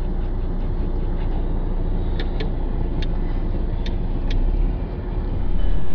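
Steady low car engine and road rumble heard from inside the cabin, with a few sharp light clicks about halfway through.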